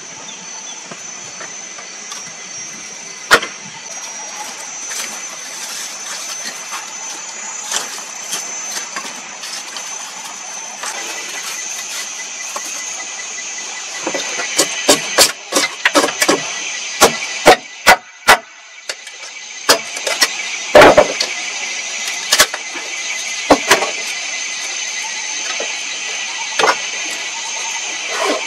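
A run of sharp wooden knocks, about a dozen in quick succession in the middle, as wood is chopped on a plank table, with one lone knock earlier. A steady high-pitched drone sounds behind them throughout.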